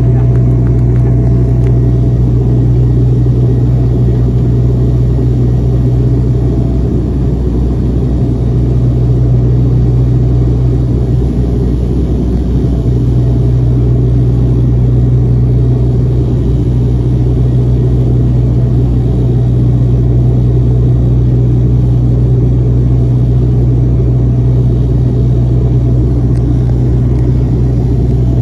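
De Havilland Dash 8-100 twin turboprop engines and propellers giving a loud, steady drone with a strong low hum, unchanging in pitch and level.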